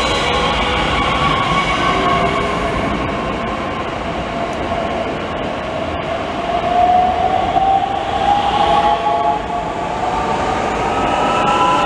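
DB class 442 Talent 2 electric multiple unit running past close by, with a steady rolling noise and a whine from its electric drive that rises in pitch over the second half as the train gathers speed.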